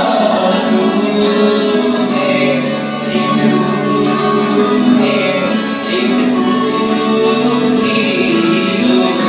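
Devotional bhajan music: singing over guitar accompaniment.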